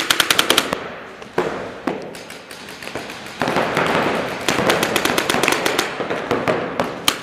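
Paintball markers firing rapid strings of shots: about ten sharp cracks a second in the first second, then from about three and a half seconds in a dense stretch of overlapping shots and impacts. The cracks ring with the echo of a large indoor hall.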